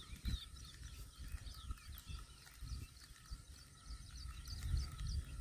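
Faint chorus of many short, high chirps from small animals, several a second, over a steady high hum, with low rumbles now and then.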